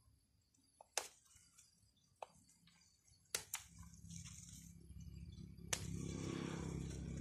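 Pruning scissors snipping small shoots and leaves from the lower trunk of a bonsai: a handful of sharp, separate snips. From about four seconds in, a low steady rumble builds up underneath and becomes louder than the snips.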